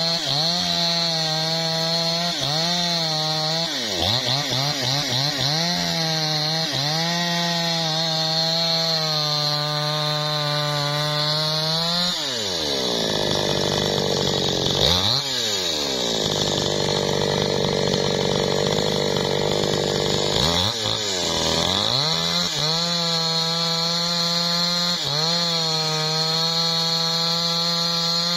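Maestro two-stroke petrol chainsaw cutting into the trunk of a teak tree at full throttle, its pitch dipping now and then as the chain bites. About twelve seconds in it drops to idle for several seconds, with one short blip of the throttle, then revs back up and cuts again.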